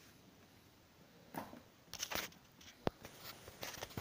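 Handling noises from the opened audio amplifier being worked on: scattered clicks and rustling that begin about a second in, with one sharp click near the middle.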